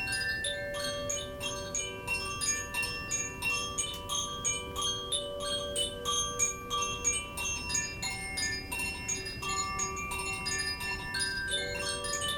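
Koshi chimes being played: rapid, irregular tinkling strikes, several a second, with clear high ringing tones that overlap and linger.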